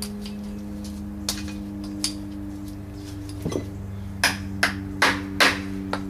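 Hammer blows on a stuck part of a transmission being torn down: a few lighter taps, then four harder strikes about 0.4 s apart near the end. A steady hum runs underneath.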